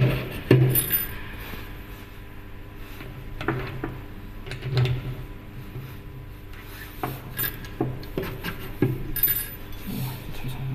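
Irregular metallic clinks and knocks from handling a laser-marker rotary attachment: the chuck key working the three-jaw chuck and aluminium tailstock parts being adjusted, with a few dull thumps of parts set down on the table.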